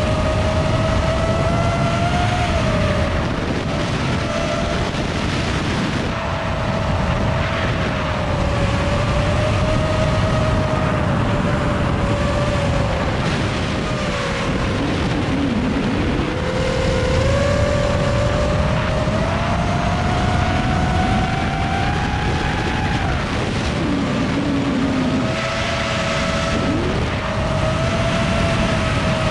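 Quadcopter drone's electric motors and propellers whining in flight over a steady rush of wind noise. The pitch drifts up and down with throttle, climbing slowly through the middle and then dropping.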